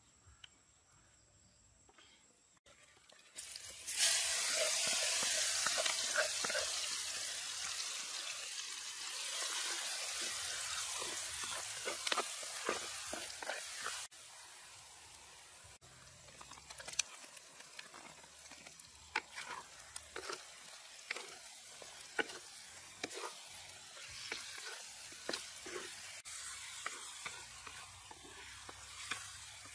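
Food frying in hot oil, the sizzling starting suddenly about four seconds in. It drops off abruptly about fourteen seconds in to quieter sizzling, with repeated clicks of a utensil stirring the pan.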